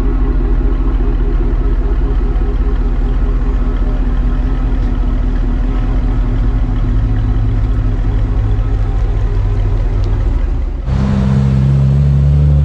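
A car's exhaust idling with a deep, steady rumble. About eleven seconds in, it cuts to another car's engine running louder, with a steady, higher note.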